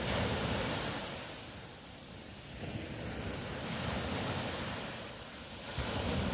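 Ocean waves breaking and washing on the shore, the surf swelling and falling away in surges with two lulls between them.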